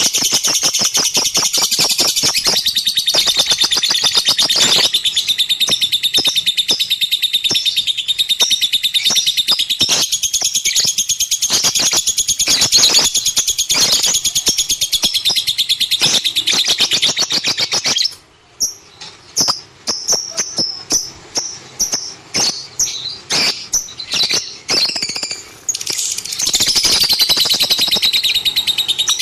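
Lovebird singing: a fast, continuous, high-pitched chatter of chirps. Past the middle it thins for several seconds to separate short chirps, then the dense chatter resumes near the end.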